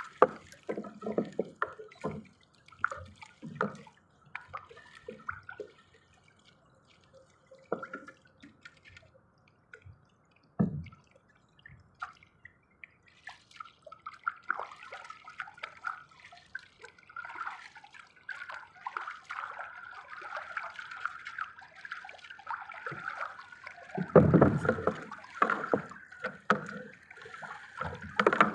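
Water dripping and splashing in irregular spurts, growing busier past the middle, with a loud splash about 24 seconds in.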